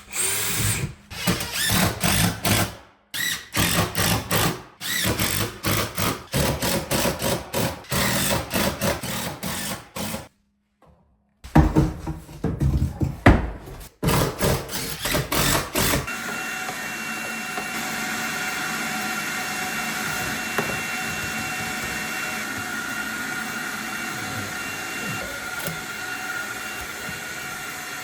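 Cordless impact driver sinking green backer-board screws into cement backer board, in many short repeated bursts with a brief pause about ten seconds in. About sixteen seconds in it gives way to a steady hiss with a faint high tone.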